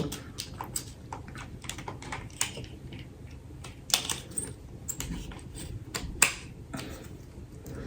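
Irregular light clicks and taps of a phone being fitted into a tripod stand's phone holder and the stand's parts being handled, with a few louder knocks.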